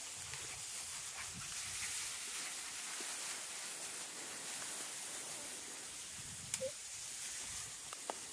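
Long grass rustling and swishing as feet and small puppies push through it, a steady hiss throughout. A single short, high chirp sounds about six and a half seconds in.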